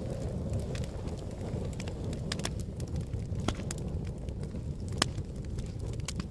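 Wood fire crackling, with sharp snaps and pops every second or so over a steady low rumble of wind.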